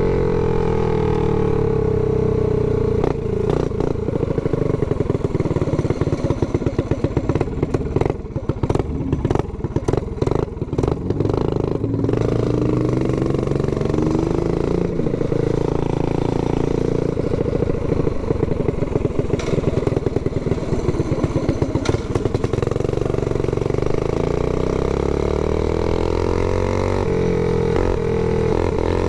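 Mini bike's single-cylinder Predator engine with a stage 4 trumpet exhaust, running under way and rising and falling in pitch as the throttle opens and closes. For a few seconds about a third of the way in it goes choppy and stutters.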